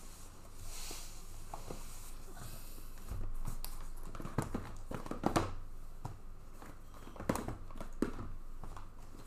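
Irregular light taps and clicks, with a brief rustle about a second in.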